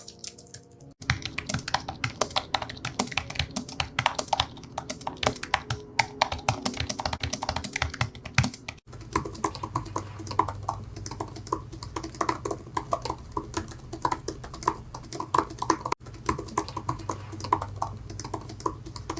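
Fast typing on computer keyboards: dense, irregular key clicks in several back-to-back clips, with abrupt cuts about a second in, about nine seconds in and about sixteen seconds in, where the sound of the keys changes.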